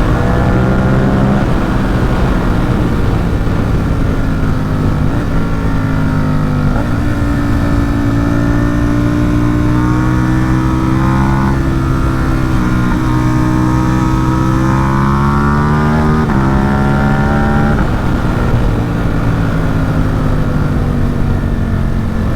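Ducati Supersport 950 S's 937 cc L-twin, through an aftermarket Competition Werkes exhaust, pulling hard on the road. Its pitch climbs and drops back at each gear change, several times. Near the end it eases off and the pitch falls.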